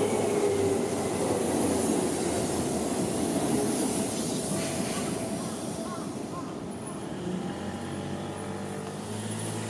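Electric train running past over rail joints, with a faint falling squeal from the wheels; the rumble dies away about six to seven seconds in, leaving a low hum.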